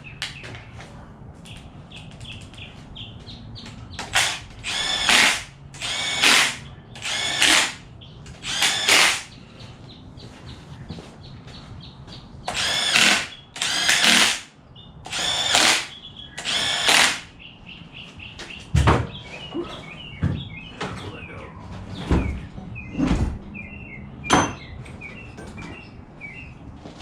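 Power drill run in about nine short bursts, each under a second, its motor spinning up and down, followed by a few sharp clicks and knocks.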